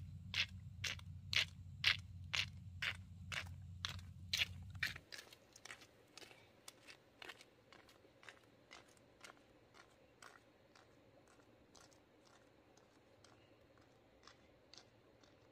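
Footsteps walking at a steady pace of about two crunching steps a second. They are loud over a low rumble at first, then after a cut about five seconds in they go on fainter on a gravel road.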